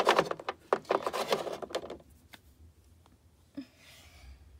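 Small plastic toy figures and a plastic dollhouse being handled: a quick run of light taps, clicks and scrapes over the first two seconds, then only faint rubbing.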